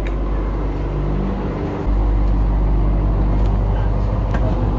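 Caterpillar 3208 V8 diesel engine idling below deck, a steady low hum heard through the yacht's cabin; the low rumble grows louder about two seconds in.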